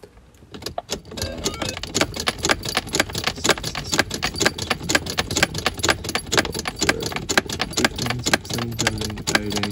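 Toyota Land Cruiser ignition key being turned rapidly back and forth between accessory and on, a fast run of switch clicks, several a second, with the keys jingling on the ring. This is the repeated key-cycling that puts the remote-entry receiver into programming mode.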